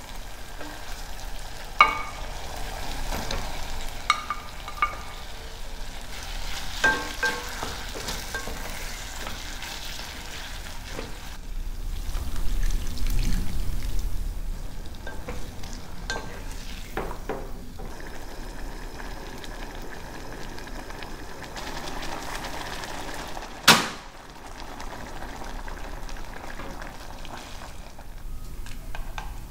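Food frying and sizzling in a pan while it is stirred, with a few short ringing clinks in the first several seconds and one sharp knock about three-quarters of the way through.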